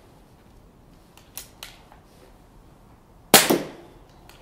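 Air Arms S510 Ultimate Sporter Regulated .22 pre-charged pneumatic air rifle: two light clicks as the side lever is worked to cock it and index the next pellet, then a single sharp shot a little over three seconds in, with a short ringing tail.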